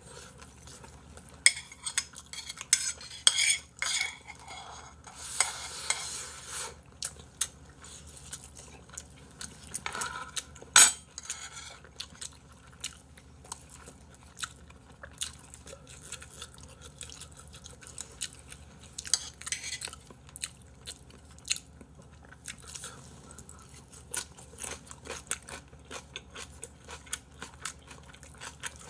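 Chopsticks and a spoon clicking and scraping against a handheld bowl and plastic food trays, with some chewing. The small clicks run on steadily, broken by a few louder knocks, the sharpest about eleven seconds in.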